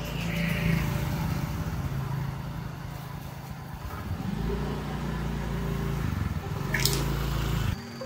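Motor scooter's small engine running, then picking up as the scooter pulls away about halfway through, with a short sharp high sound shortly before the end.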